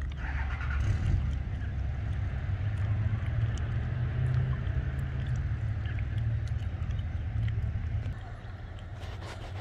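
Low, gusty rumble of wind buffeting the microphone, easing about eight seconds in.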